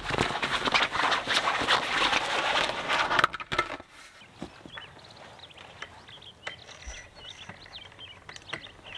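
Close rustling and clattering of a van's roll-out awning being handled and set up, full of small clicks, for about the first three seconds. It then cuts to a quiet open-air background with small birds chirping now and then.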